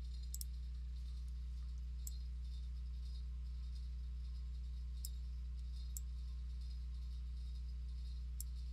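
A few faint computer mouse clicks spread out over a steady low electrical hum.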